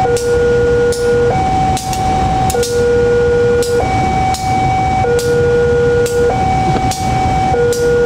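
Railway level-crossing alarm sounding its electronic two-tone warning: a lower and a higher tone alternate about every second and a quarter, with sharp clicks in between. Under it is the low rumble of a diesel locomotive moving past the crossing.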